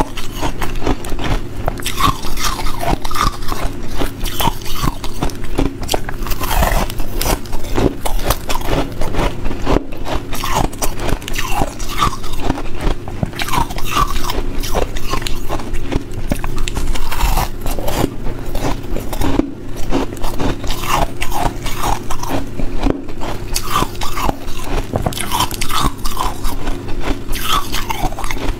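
A person biting and chewing a block of ice frozen in a plastic bottle: a dense, unbroken run of crunches and cracks.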